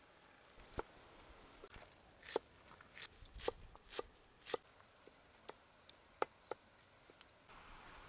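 Large kitchen knife chopping spring onions and garlic on a wooden chopping board: about a dozen sharp knocks at an uneven pace.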